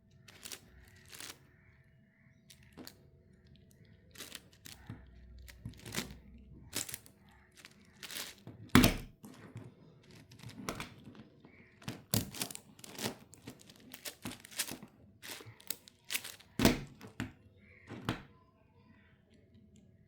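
Plastic clicking and clacking of a 10x10 puzzle cube being turned and handled: irregular single clicks and short runs of turns, with two louder knocks about nine and seventeen seconds in.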